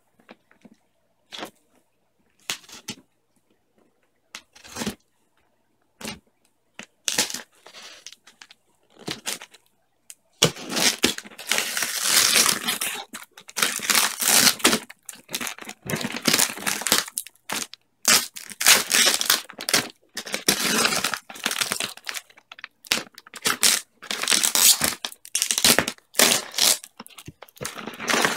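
Paper wrapping and plastic tape being cut and torn off a cardboard shipping box: scattered short rips and crackles at first, then from about ten seconds in, continuous tearing and crinkling.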